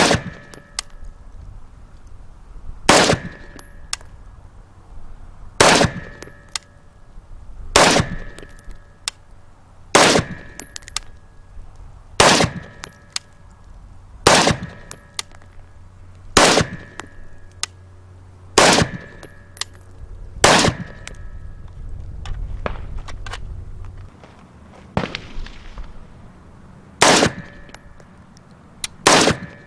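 AR-15 rifle firing 5.56 NATO rounds in slow, deliberate single shots, about one every two seconds, a dozen or so in all, with one longer pause late on. A short thin ringing follows each shot.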